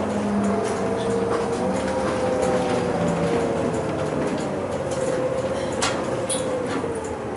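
Inside a moving city bus: the engine and drivetrain hum under a steady whine that rises a little early on and then slowly sinks, over road noise, with a few light rattles and clicks from the bus's fittings.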